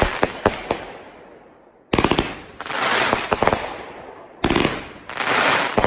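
Consumer aerial fireworks going off in bursts: a few sharp bangs at first, then two volleys of rapid crackling pops about 2 and 4.5 seconds in. Each volley trails off in a fizzing crackle that fades over a second or two.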